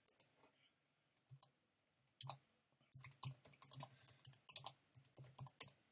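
Typing on a computer keyboard: a few scattered key clicks, then a fast run of keystrokes over the last three seconds.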